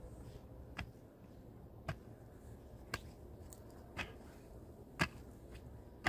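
Sharp knocks or taps at an even pace of about one a second, five in all.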